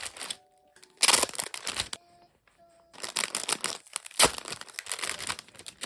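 Plastic or paper packaging crinkling and tearing by hand in bursts as a parcel is unwrapped. The longest, loudest stretches begin about a second in and about three seconds in.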